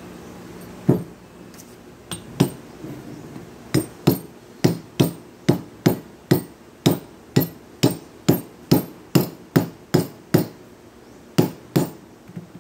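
A rubber mallet striking a car alternator's metal end housing about twenty times, sharp knocks with a short metallic ring. The blows come in a steady run of about two a second, with a few scattered strokes before and after.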